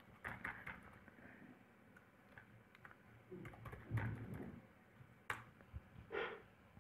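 Faint typing on a computer keyboard: scattered keystrokes with a denser run midway, then a few separate sharp clicks near the end.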